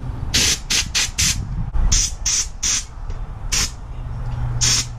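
About nine short hissing bursts from a pressurised nozzle, in quick clusters with short pauses between, as a motorcycle handlebar grip is worked onto the bar. A faint low hum comes in near the end.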